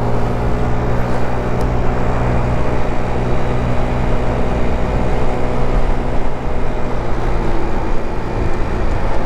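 GY6 50cc scooter's four-stroke single-cylinder engine running at a steady cruise, with wind and road noise.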